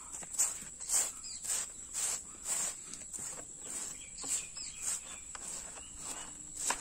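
Short stick hand broom scratching across a dirt floor in repeated quick strokes, about two a second, sweeping cow dung onto a metal dustpan. A steady high-pitched insect drone runs underneath.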